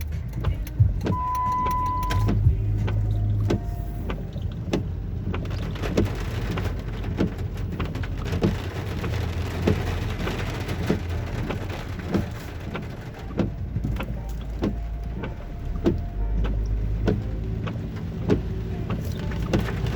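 Heavy storm rain striking a car, many irregular sharp knocks of drops, over the steady low hum of the car's running engine. A brief steady beep sounds about a second in.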